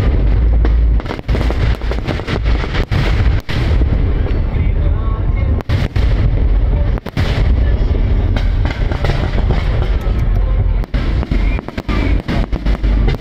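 Fireworks display at its height: aerial shells bursting in rapid succession, the booms overlapping into a continuous heavy rumble with sharp cracks throughout.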